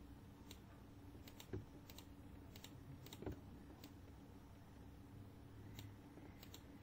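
Faint, irregular clicks of a computer mouse and keyboard, about eight in all, as text fields are selected and resized in a GUI designer, over a low steady hum.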